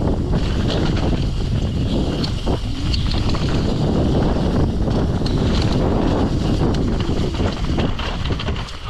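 Mountain bike descending a rough trail at speed: wind buffeting the camera microphone over steady tyre noise on dirt, with frequent clicks and rattles from the bike.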